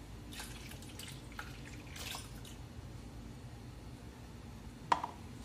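Milk poured from a carton into a plastic blender jar over beaten eggs, a faint splashing trickle, with a single short knock near the end.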